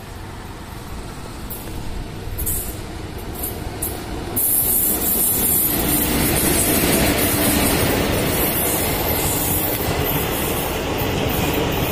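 Indian Railways WAP4 electric locomotive approaching and passing with a train of passenger coaches. The noise builds, rises sharply about four seconds in as the train reaches the microphone, and then holds as the steady rolling of the coaches' wheels on the rails.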